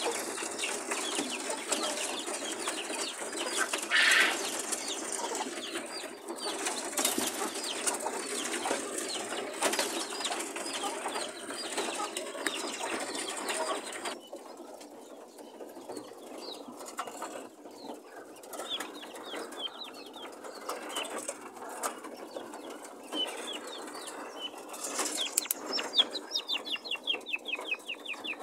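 Quails in a wire-floored cage shuffling and fluttering their wings. In the second half come two runs of rapid, short, falling chirps, the later one near the end.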